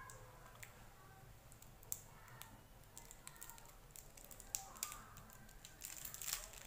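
Faint scattered clicks and crinkles of a small clear plastic wrapper picked at by fingers, as a child works to open a wrapped eraser.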